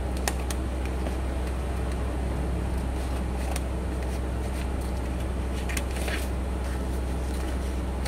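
Steady low hum over a constant hiss of background noise, with a few faint rustles and taps from a sheet of paper being handled and folded on a desk, a cluster of them about six seconds in.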